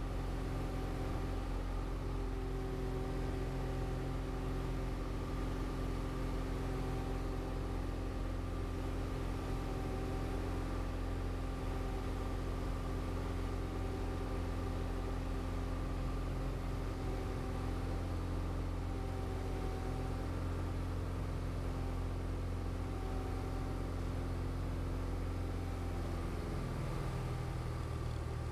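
Diamond DA40 light aircraft's piston engine running steadily at low power in the cabin after landing, with its note changing near the end.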